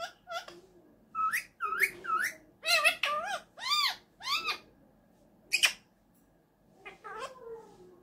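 Indian ringneck parakeet imitating a cat's meow: a quick run of short meow-like calls that rise and fall in pitch, then a single sharp call and a lower drawn-out call near the end.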